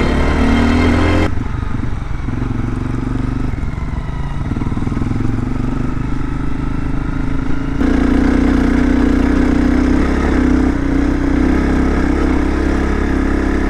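Honda CRF250L dirt bike's single-cylinder four-stroke engine running steadily while riding, its note changing abruptly about a second in and again about two-thirds of the way through.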